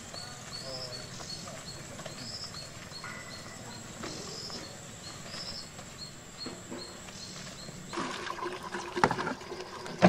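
Outdoor ambience with a bird repeating short high chirps at a regular pace over a steady high thin tone. About eight seconds in it changes to water sloshing and gurgling as it is poured from a large plastic water bottle, with a couple of knocks of the bottles.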